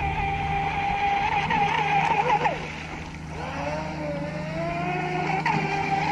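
Atomik Barbwire XL RC boat's electric motor whining at speed on a 3S battery. About two and a half seconds in, the whine drops sharply in pitch and fades, then climbs back up over the next two seconds as the boat speeds up again.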